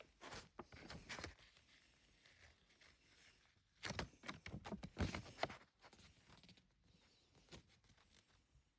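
Small plastic packaging of a toy capsule being handled and opened: scattered faint rustles and clicks in two bursts, the louder one about four seconds in.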